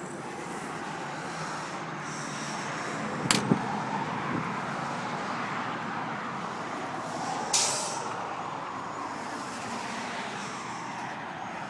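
Steady outdoor vehicle and traffic noise, with one sharp knock about three seconds in and a short hiss a little past halfway.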